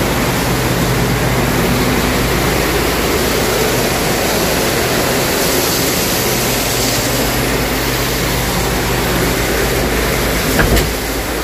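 Feed-mill corn-cracking machinery running steadily: a loud, even rushing noise over a low hum. A sharp knock comes near the end, and the sound drops a little after it.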